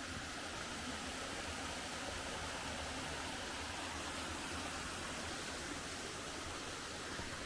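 Steady rushing of a mountain stream flowing over rocks, an even hiss with no breaks.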